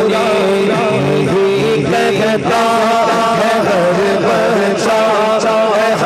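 A man singing a manqabat (devotional Islamic hymn) through a microphone, drawing out long, wavering, ornamented notes.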